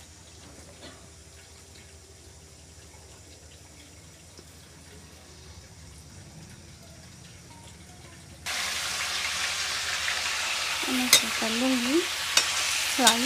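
Chicken pieces going into hot mustard oil in a kadhai, setting off loud, steady sizzling that starts suddenly about eight and a half seconds in. A few sharp clinks of a utensil sound over the frying near the end. Before that there is only a low hum.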